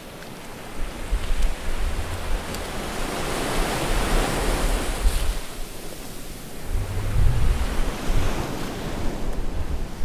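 Ocean surf washing in, a broad hiss swelling to a peak about four seconds in and then fading, with low gusts of wind rumbling on the microphone.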